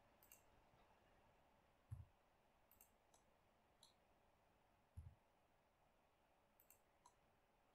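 Near silence with faint, scattered clicks of a computer mouse and keyboard, about eight in all; two of them, about two and five seconds in, come with a soft low thump.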